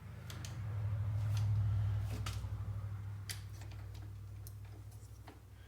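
Scattered metallic clicks of an 18 mm six-point socket and wrench being fitted onto a rusted brake caliper bracket bolt, over a low hum that swells and then fades.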